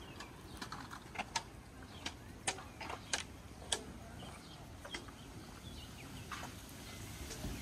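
Footsteps on a hard walkway: sharp clicking steps about half a second apart, thinning out after the first few seconds, over a steady low outdoor rumble.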